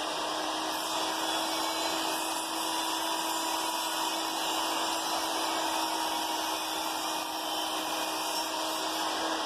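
An electric motor running steadily: an even hum with hiss, holding the same pitch throughout.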